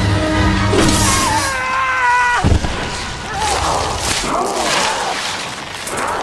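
Fantasy-film soundtrack mix: wavering high tones over low steady tones that are cut off by a heavy thud about two and a half seconds in, followed by noisy rushing and scraping effects as the snake-bodied Medusa creature coils around her victim.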